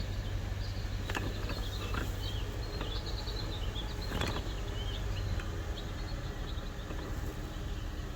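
Outdoor background noise: a low steady hum that fades out about halfway, short high chirps, and a few sharp clicks.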